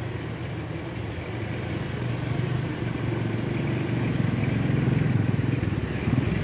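Two motorcycles running along a dirt track, their engines growing steadily louder as they approach and pass close by near the end.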